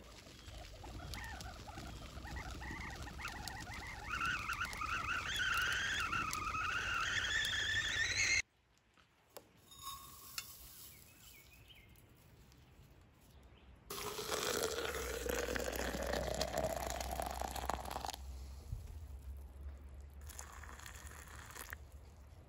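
A wavering whistle that climbs in pitch over several seconds and cuts off abruptly. About fourteen seconds in, hot water is poured from a Kelly Kettle into a mug of loose tea leaves, its pitch rising steadily as the mug fills, for about four seconds.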